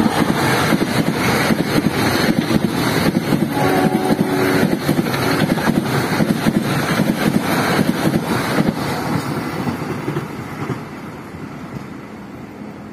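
Passenger train passing close by at speed: a diesel locomotive and then its coaches, wheels clattering rapidly on the rails over a loud rushing noise. The noise fades in the last few seconds as the train draws away.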